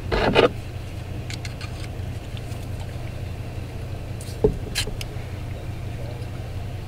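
Small metal clicks and a short clatter as screws and connector plates are handled and fitted on the terminals of LiFePO4 battery cells: a brief clatter at the start, a few light ticks, and two sharp clicks a little after the middle. A steady low hum runs underneath.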